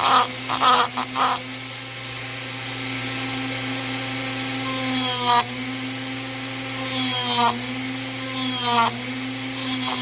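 Small high-speed electric rotary tool running steadily while grinding the cast teeth of a Kawasaki KX500 kickstart ratchet gear to square and deepen them. Its pitch dips briefly a few times as it bites into the metal. A few short harsh bursts sound in the first second and a half.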